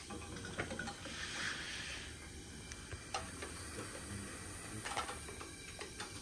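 Scattered small clicks and rustling as hands work on a motorcycle's wiring and LED fittings, with a brief rustle about a second in, over a faint low hum.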